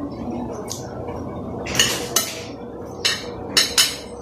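Metal spoon and fork clinking and scraping against a glass plate: a cluster of clinks about two seconds in, then three sharp clinks near the end.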